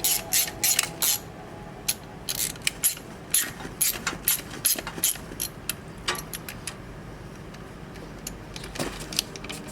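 Hand-tool work on an air conditioner outdoor unit: a run of irregular sharp metallic clicks and clatters, thick for the first few seconds and then thinning out.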